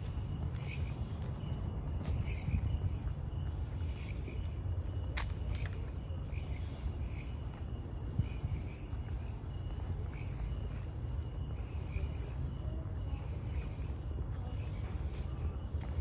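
Steady high trilling of a forest insect chorus, crickets and similar, with footsteps on the trail at an even walking pace, about one every three-quarters of a second, over a low rumble.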